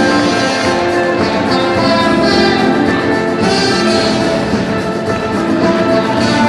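Background music, with held notes from brass or orchestral instruments.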